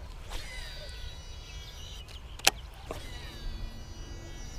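A sharp, loud click about halfway through as a baitcasting reel is cranked to retrieve a topwater buzz toad, with a low steady hum from the reel in the second half. Short falling bird chirps are heard faintly.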